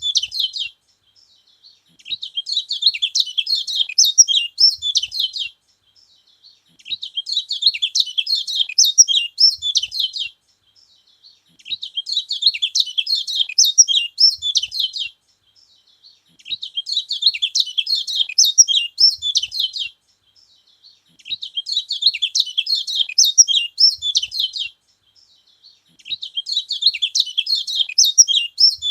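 Kecial kuning (yellow white-eye) singing: rapid, high twittering song phrases about three seconds long, repeated with about a second's pause between them, six times over.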